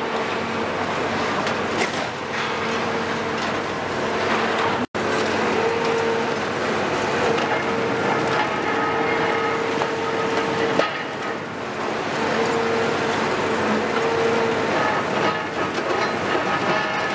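Heavy demolition excavator working, a Cat 374F with its Cat C15 diesel engine running under load and a steady hydraulic whine that swells and fades. The sound cuts out for an instant about five seconds in.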